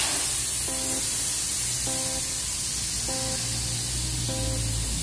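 Loud steady hiss, with background music whose short chord repeats about once every second and a quarter.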